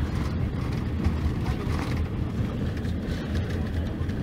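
Mercedes-Benz OC-500RF-1842 coach's rear-mounted six-cylinder diesel engine running with a steady low rumble.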